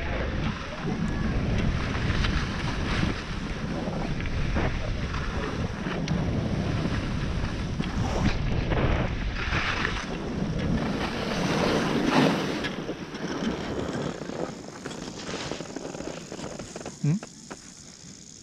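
Skis scraping and carving over groomed snow, with wind rushing over the GoPro's microphone. The noise eases off over the last few seconds as the skier slows to a stop.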